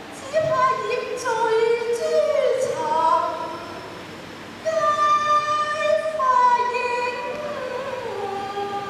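A woman singing Cantonese opera into a microphone: two long melodic phrases with held notes that slide between pitches, a short gap about four seconds in.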